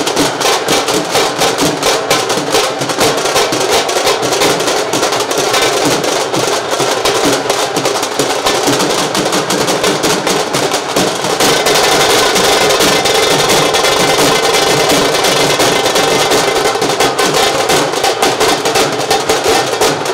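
Music with a fast, steady drum beat.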